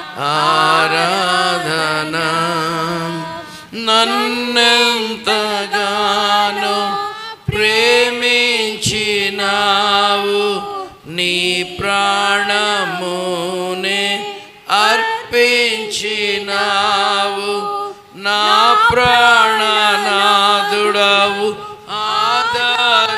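A man singing a Telugu Christian worship song in long, drawn-out phrases of a few seconds each, with short breaks between them.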